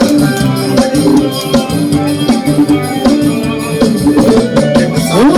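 Background music with drums and shaker-like percussion under steady held notes; a rising swoop in pitch near the end.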